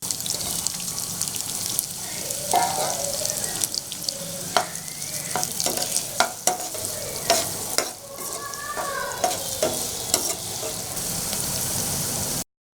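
Chopped small onions sizzling in hot oil in a kadai while a spatula stirs them, clicking and scraping against the pan. The sizzle cuts off suddenly near the end.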